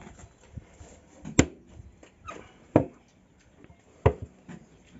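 Three sharp clanks about a second and a half apart, the first the loudest: the doors of a barbecue grill's oven being shut.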